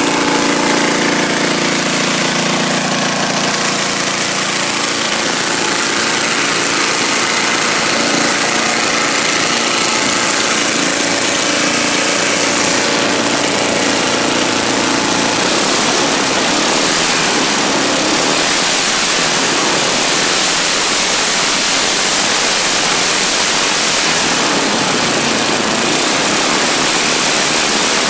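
Small engine of a custom-built yard mower running steadily. After about five seconds a loud, even hiss takes over and buries the engine tone.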